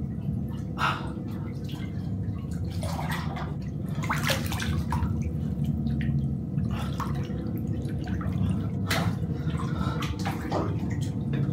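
Bathwater sloshing and splashing in a filled bathtub as a person shifts and thrashes in it, in irregular splashes over a steady low hum.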